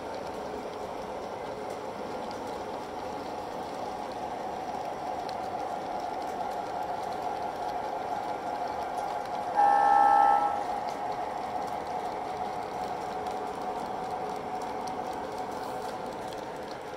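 Steady rolling noise of a long train of model Amfleet passenger cars running along the track. About ten seconds in, a model locomotive's electronic horn sounds once, for about a second, the loudest thing here.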